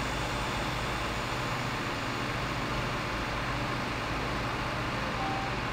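Road-rail fire engine's diesel engine running steadily: a low, even rumble under a broad hiss.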